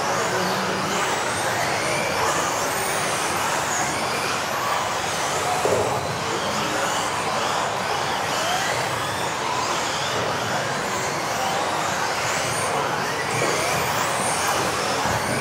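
Several electric RC off-road buggies racing together, their motors giving many short high whines that rise and fall as the cars speed up and slow down, over a steady rushing noise, echoing in a sports hall.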